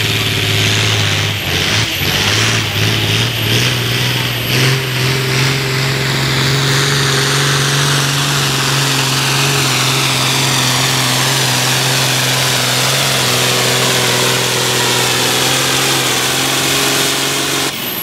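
Pulling tractor's engine running hard under load as it drags a weight-transfer sled down the track. The engine note steps up about four seconds in, then holds steady and loud.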